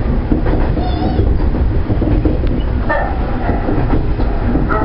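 JR Central 119 series electric train running along the line, heard from the driver's cab: a steady low rumble of the motors and wheels on the rails.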